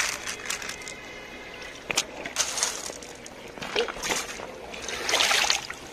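Shallow water splashing and sloshing among pebbles in short bursts as hands reach in, with a sharp click about two seconds in.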